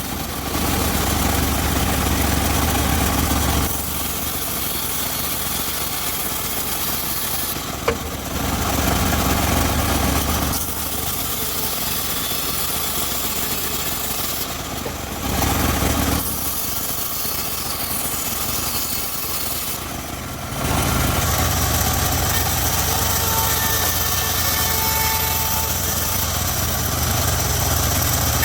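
Engine-driven homemade circular sawmill running steadily, its low machine sound growing heavier in several stretches, the longest through the last third. A single sharp click about eight seconds in.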